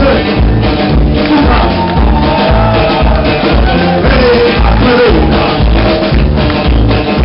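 Live country band playing, with drums and bass keeping a steady beat under a gliding melody line.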